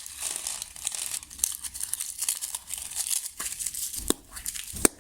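Plastic packaging crinkling and rustling as a bag is opened and handled, with two dull thumps near the end as something is set down.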